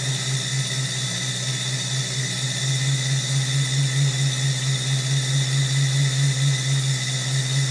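Electric chain hoist motor running steadily while lowering a heavy engine: a low hum with a thin, steady high whine.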